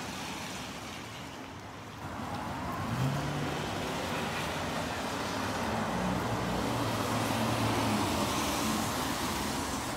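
A car driving by on a wet street: tyre hiss on wet pavement under a low engine hum, growing louder from about two seconds in and loudest toward the end.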